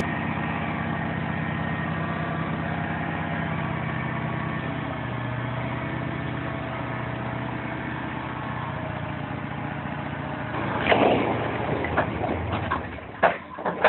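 Dump truck engine running steadily while the loaded bed tips up. About eleven seconds in, the load of building blocks slides off and crashes down in a burst of clattering impacts, with a sharp knock near the end.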